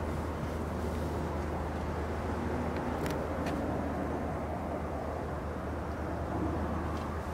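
Steady low rumble of background noise, with two faint clicks a little after three seconds in.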